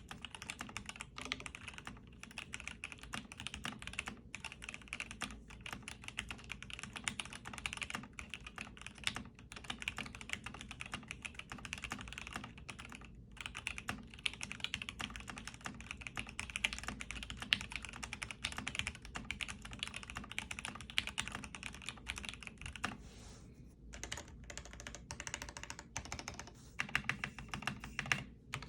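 Foxlab F80SE mechanical keyboard with Gateron Ink Black linear switches being typed on steadily: a dense run of keystroke clacks, with a brief pause about two-thirds of the way through.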